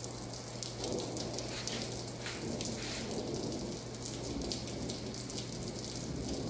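Steady rain falling, a dense patter of small drops on surfaces, with a low steady hum underneath.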